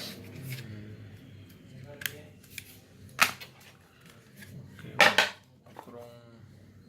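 Handling of phone-box packaging and paper inserts: a few short, sharp clicks and rustles, the longest and loudest a little past halfway.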